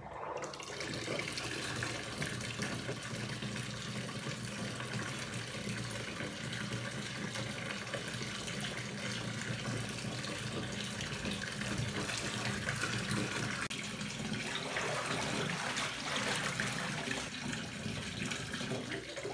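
Bath tap turned on and running steadily, filling a freestanding bathtub with water.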